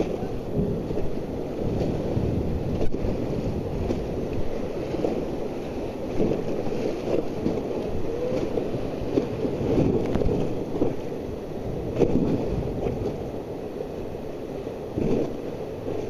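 Whitewater rapids rushing and splashing around an inflatable raft, a continuous noise with irregular louder surges, with wind buffeting the microphone.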